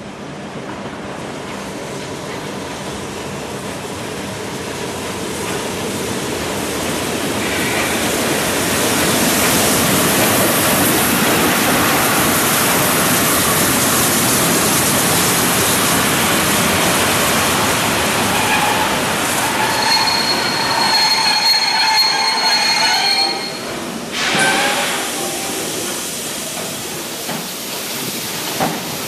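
Steam locomotive 01 1075, a German class 01.10 express engine, moving through the station: a loud steady rushing that builds over the first several seconds. A high squeal from the wheels sounds for a few seconds about two-thirds of the way in, then the noise drops and a short burst follows.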